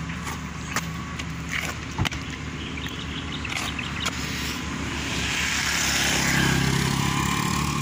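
A motor vehicle's engine running steadily, growing louder about five seconds in, with a few light clicks in the first half.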